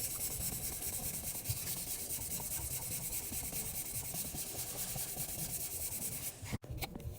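Sanding on car bodywork, a steady rubbing noise that cuts off abruptly near the end.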